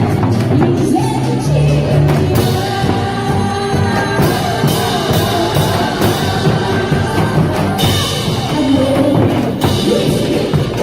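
A singer performing a song over amplified backing music with drums.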